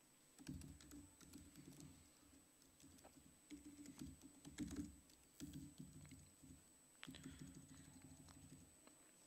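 Faint typing on a laptop keyboard: quick, irregular keystroke clicks as code is entered.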